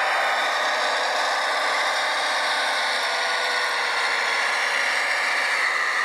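Radio-controlled construction model's electric drive running steadily: a continuous motor-and-gear whine that drifts slightly in pitch.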